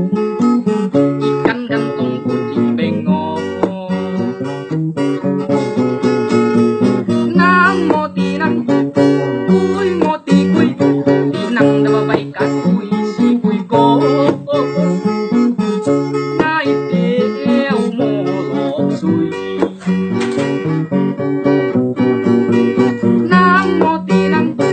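Acoustic guitar strummed in a steady run of chords, with a man singing along.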